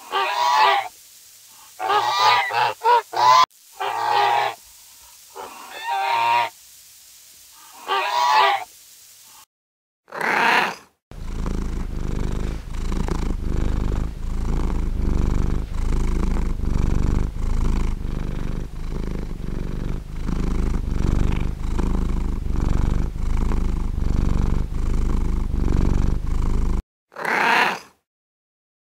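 A cat purring steadily, the purr swelling and easing about once a second with its breathing, for most of the clip. Before it come several short animal calls, and one more short call sounds near the end.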